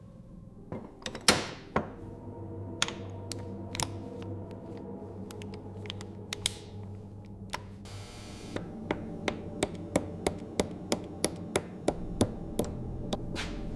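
Sharp metal taps and clicks from hand work on an engine block and its parts during a rebuild. The taps come irregularly at first, then settle into a regular tapping about three times a second in the second half. There is a brief hiss about eight seconds in, over a low steady hum.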